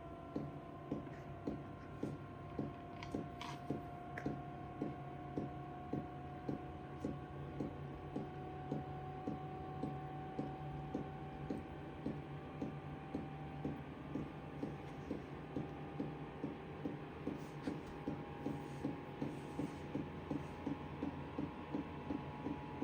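LF Bros N2 diesel air heater in its start-up phase: the fuel pump ticks steadily about twice a second over the hum of the blower fan, whose whine rises slowly as the heater ramps up before ignition.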